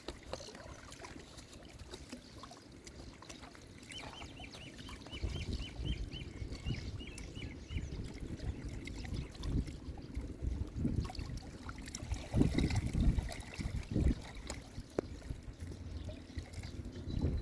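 River water trickling and lapping, with irregular low rumbles. About four seconds in, a bird gives a quick run of repeated high notes lasting a few seconds.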